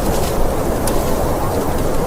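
Blizzard wind blowing steadily, a deep rushing noise with faint scattered ticks above it.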